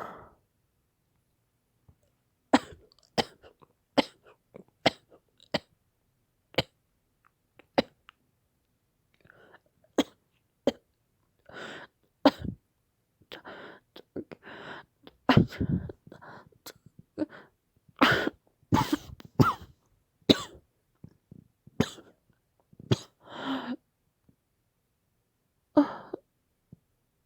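A woman coughing hard again and again in a prolonged fit, some coughs short and sharp, others drawn out, in clusters with brief pauses between; acted as a severe coughing attack of the kind she later puts down to mild asthma.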